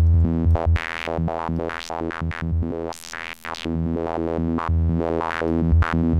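Serum software synthesizer playing a fast, repeating psytrance sequence of short notes through a bandpass filter whose cutoff jumps at random in sixteenth-note steps (Chaos sample-and-hold modulation), so each pulse has a different brightness. There is a brief dip in level about three seconds in.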